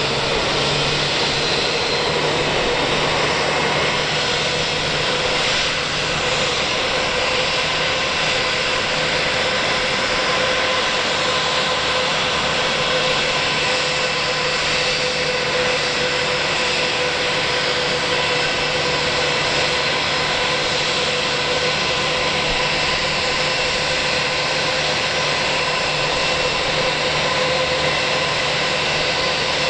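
Jet engine noise from a Finnair Airbus A321-200, running steadily: an even whine and rush with a few constant tones, and no rise or fall in pitch.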